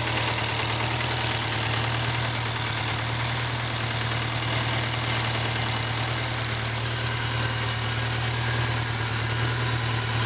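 Detroit Diesel 4-53 two-stroke four-cylinder diesel in a Cockshutt 1900 tractor, running steadily at an even speed.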